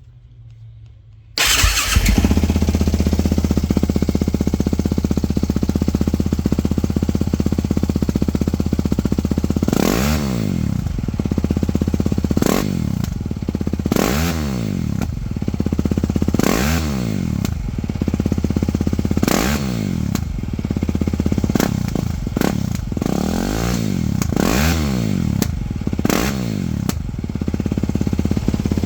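2014 Yamaha WR450F's single-cylinder four-stroke engine through a Yoshimura RS-4 exhaust starting on its first start after the exhaust was fitted. It catches abruptly about a second and a half in and idles steadily, then from about ten seconds in gets about ten quick throttle blips, each rising and falling in pitch, settling back to idle between them.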